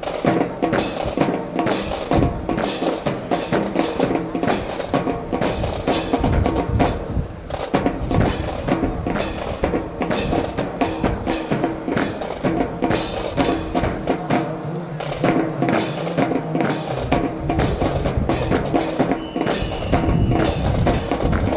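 Drum-led music with steady pitched tones and a dense beat of sharp percussive hits, accompanying a rifle drill routine.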